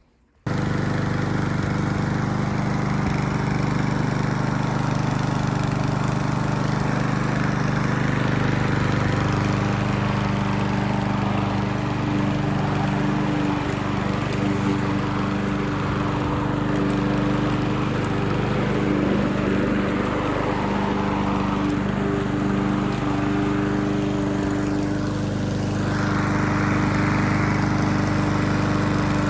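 A Hyundai self-propelled petrol lawnmower's engine runs steadily while it cuts grass, starting suddenly about half a second in.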